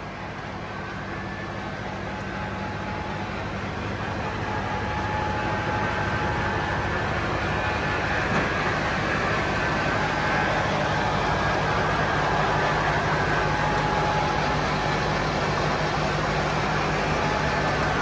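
Ford 4000 tractor engine running steadily as it powers a Foley Belsaw circular sawmill. The sound grows louder over the first several seconds, then holds.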